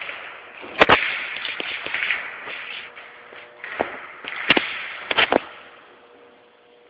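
Airsoft guns firing: sharp snapping cracks, one about a second in and a quick cluster of three or four between about four and five and a half seconds, over a noisy background.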